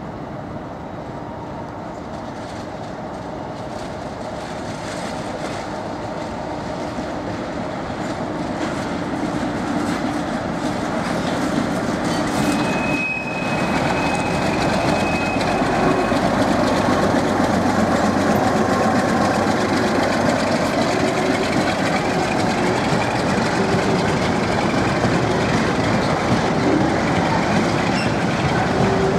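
British Rail Class 47 diesel locomotive (Sulzer V12 engine) approaching and passing with a freight train of hopper wagons, growing steadily louder. A high, thin squeal is heard for a few seconds about halfway through. After that comes the continuous rumble and clatter of the wagons' wheels over the rail joints.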